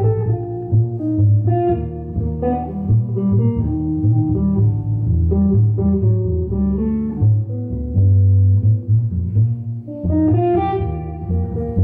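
Live jazz trio playing an instrumental passage: electric guitar picking melodic lines over a plucked double bass walking steadily underneath.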